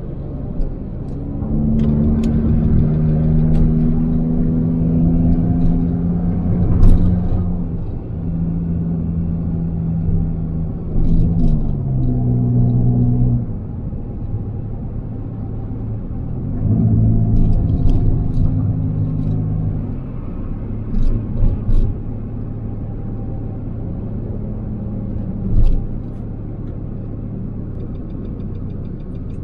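Nissan car's engine and road rumble heard from inside the cabin while driving. The engine note holds steady for stretches and drops in steps a few times as speed changes. A few sharp clicks and knocks cut through.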